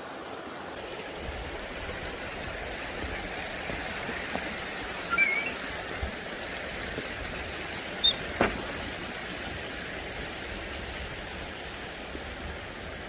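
Shallow river water running steadily over stones and a small riffle. Short high chirps come about five seconds in and again about eight seconds in, with a single sharp knock just after the second.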